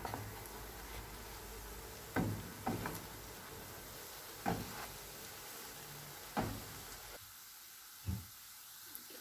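Bread rolls sizzling as they shallow-fry in oil, with a plastic slotted spoon knocking against the pan about five times as the rolls are turned over.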